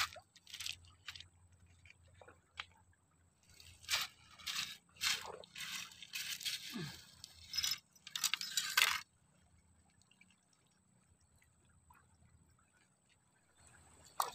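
Irregular short bursts of scraping, crunching and splashing from handling on wet gravel at the water's edge. They stop about nine seconds in, leaving near silence.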